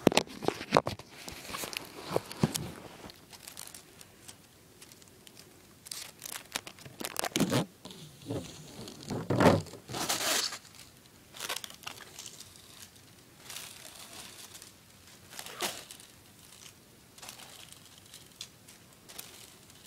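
Magnetic tape being pulled out of a VHS cassette, crinkling and rustling as it piles up, with irregular sharp bursts now and then.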